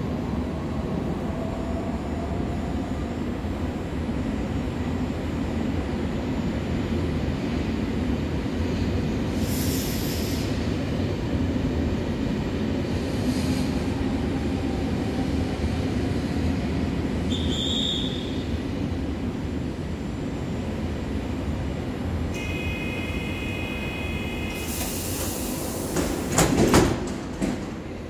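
An Italian regional train standing at an underground platform with its equipment humming steadily and a couple of brief air hisses. A short high whistle blast sounds a little past halfway, a few seconds of electronic door-warning beeps follow, and a loud burst of air and door noise comes near the end as the doors close for departure.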